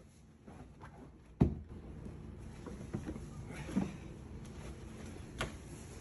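A sharp thump about a second and a half in, then soft rustling and shuffling with a few lighter knocks: a person shifting and swinging his legs about in an upholstered armchair.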